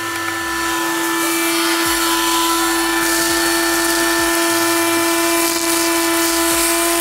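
Electric motor of a cleaning tool running with a steady, even whine and a rush of air, clearing leaves and debris out of an engine bay.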